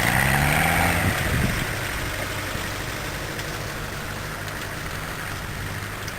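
Off-road 4x4's diesel engine running, its revs rising briefly in the first second, then settling into a steady low idle.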